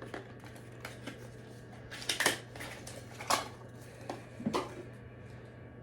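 Handling sounds from unpacking a face-mist bottle: a few short packaging rustles and clicks, the loudest about two seconds in, over a faint steady low hum.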